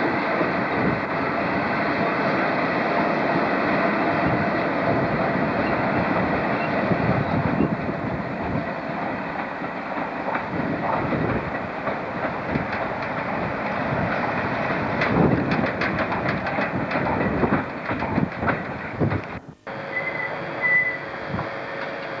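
A freight train of coal hopper wagons rolling past with a steady rumble of wheels on rail. In the second half it turns into a quicker run of sharp clicks as the wheels cross rail joints. It cuts off abruptly about twenty seconds in.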